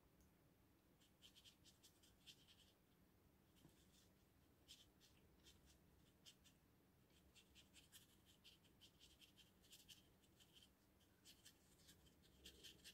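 Faint, quick scratchy strokes of a round watercolour brush dragged on its side across cold-press watercolour paper, coming in irregular clusters: dry-brush technique laying texture.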